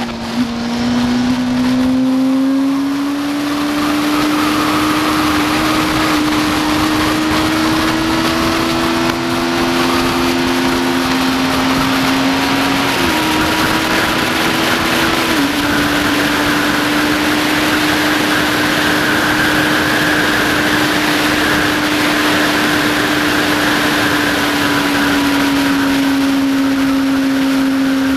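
2007 Yamaha FZ6n's 600 cc inline-four engine pulling hard at high revs, its note climbing slowly, stepping in pitch about halfway through, then held nearly steady. Wind rushes over the microphone throughout.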